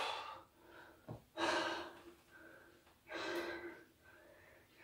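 A person breathing heavily under exertion while holding a side plank: two main heavy breaths about a second and a half apart, with fainter breaths between.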